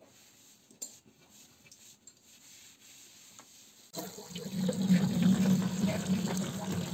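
A few faint clicks, then about four seconds in a tap starts running: water pours from the faucet into a plastic bowl of olives while a hand swishes them around to wash them.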